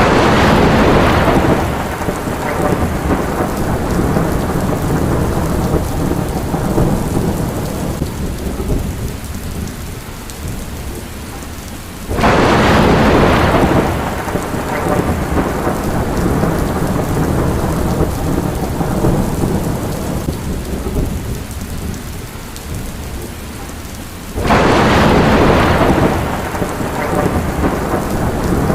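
Heavy rain with thunder: three sudden thunderclaps at even spacing about twelve seconds apart, each fading into a long low rumble under the steady hiss of the rain.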